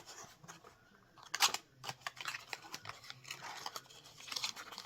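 Cardboard ornament box and its packaging being handled and opened: irregular rustling and light clicks, with one sharp crackle about a second and a half in.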